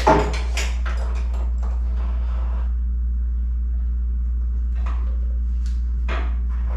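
Scattered clinks and knocks of hand tools being handled, busiest in the first couple of seconds and then a few single clicks near the end, over a steady low hum.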